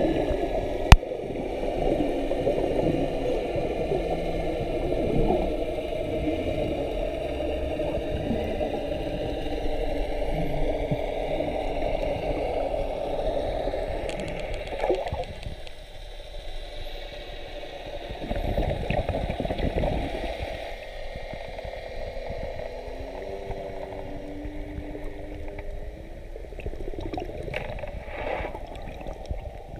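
Muffled underwater water noise with a gurgling, rushing quality, heard through a camera's waterproof housing. A single sharp knock comes about a second in, and a few faint gliding high tones come and go.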